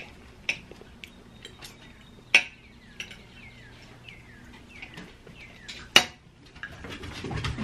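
Metal forks and knives scraping and clinking on plates, with a few sharp clinks, the loudest about six seconds in. A bird chirps faintly in a run of short falling notes in the middle.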